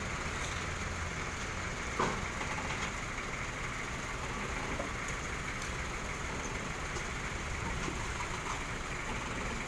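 Vehicle engine idling steadily, with a single sharp knock about two seconds in.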